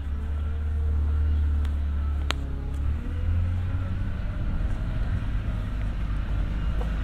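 A road vehicle passing by: a steady low rumble of engine and tyres, loudest in the first few seconds. A single sharp click comes about two seconds in.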